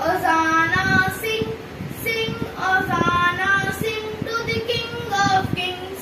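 A young girl singing a prayer solo, holding drawn-out sung notes phrase after phrase.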